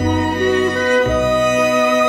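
Background music: a bowed-string melody, led by a violin, over low held notes that change about once a second.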